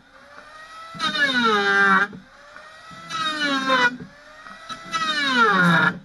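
Electric hand planer cutting a block of old wood in three passes of about a second each. The motor runs steadily between passes, and under each cut it gets louder and its whine drops in pitch as the blade bites.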